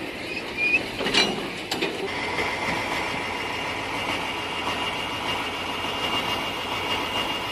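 Heavy truck engines running hard under load, with a steady high whine over the engine noise. A few sharp knocks come about a second in.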